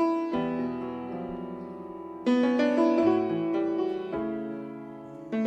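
Piano playing the slow introduction to a gospel song: chords struck every second or two, each left to ring and fade.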